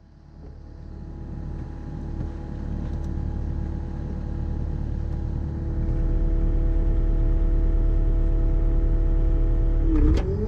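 CAT 305 mini excavator's diesel engine running at a steady speed, a low rumble with a steady whine over it, heard from the cab. It swells louder over the first few seconds, and near the end its pitch dips briefly as if under load.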